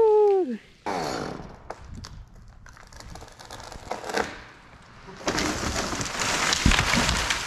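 A falling Virginia pine: a shout at the very start, then cracking and swishing as the tree goes over, with a louder crash of limbs and trunk hitting the ground from about five seconds in.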